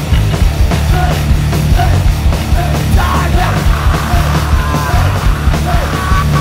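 Hardcore punk band recording playing loud and dense, with distorted guitars, bass and fast, hard-hit drums.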